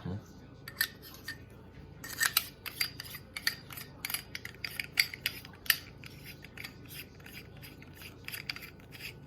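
Paintball barrel pieces clicking and clinking against each other and the case fittings as they are handled: one clink just under a second in, then a quick, irregular run of clicks from about two seconds on.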